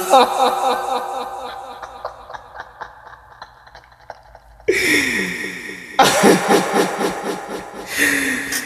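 A man's voice making sounds without words: a first burst that fades away over about four seconds, then sudden bursts about five, six and eight seconds in, the first two sliding down in pitch.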